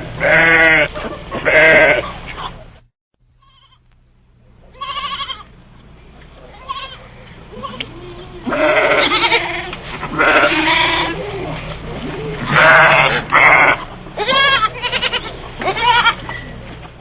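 Sheep or goats bleating repeatedly, about a dozen quavering calls, with a brief silence about three seconds in before the calls resume.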